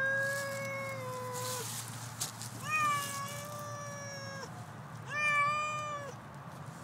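Domestic cat yowling in a cage: three long, drawn-out calls, the first two about two seconds each and the last, about five seconds in, shorter.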